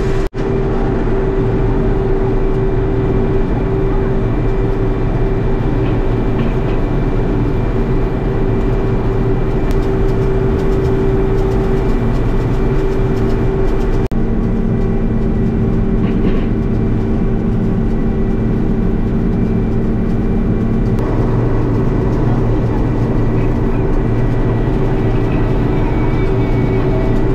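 Older John Deere combine running steadily while harvesting corn, heard from inside the cab: a loud, even drone of engine and threshing machinery with a steady hum. It cuts out briefly just after the start.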